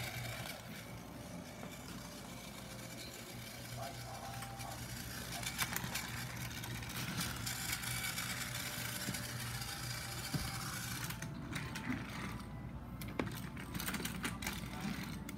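Small battery-powered motor of a Thomas toy train whirring steadily as it runs along its track, with a few sharp clicks.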